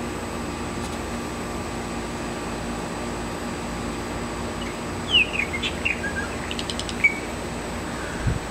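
Male purple martin singing a short burst of quick falling chirps, gurgles and sharp clicks, starting about five seconds in and lasting about two seconds, over a steady background hum. A brief low thump comes near the end.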